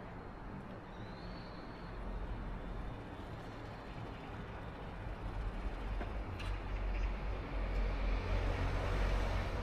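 A motor vehicle approaching on a street, its low rumble building through the second half and loudest near the end. A brief high chirp sounds about a second in.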